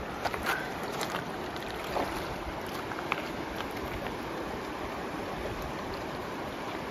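River water flowing past and lapping against the stones of a shallow rock-ringed pool at the bank, a steady wash with a few brief ticks in the first few seconds.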